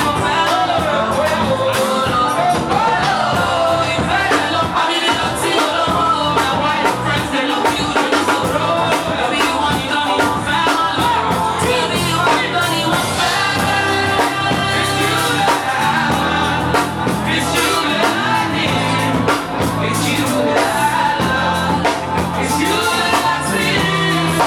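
Afrobeats song with a sung vocal over a steady beat.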